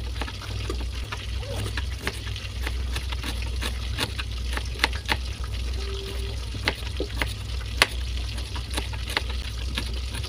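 Kitchen knife slicing garlic cloves and shallots on a plastic cutting board: irregular sharp taps of the blade on the board, about one or two a second, over a steady low hum.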